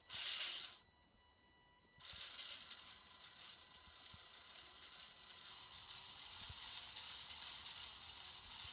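Axial SCX10 RC crawler's electric motor and geared drivetrain running steadily with a high-pitched whine. The axles are geared differently: the front one, on overdrive gears, spins faster than the rear.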